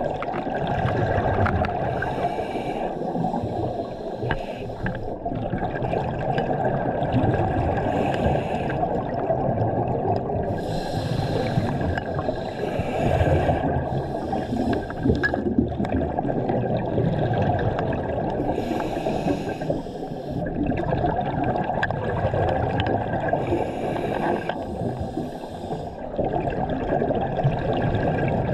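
Scuba regulator breathing heard underwater: a bubbling rush of exhaust bubbles every few seconds, over a steady low rumble of water noise.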